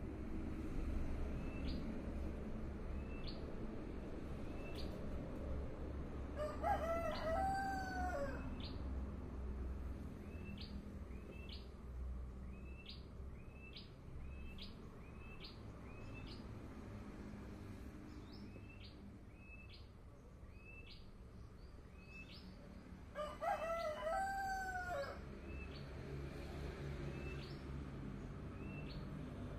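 A rooster crowing twice, each crow about two seconds long and some seventeen seconds apart. Underneath, a small bird gives short high chirps over and over, roughly one a second.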